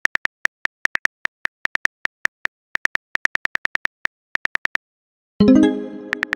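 Rapid, uneven phone-keyboard typing clicks, several a second. About five and a half seconds in, a loud pitched chord starts suddenly and slowly fades while the clicks go on.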